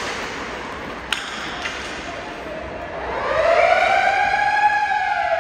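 A siren wailing, rising and then slowly falling in pitch over about three seconds in the second half, the loudest sound here. About a second in there is a single sharp crack.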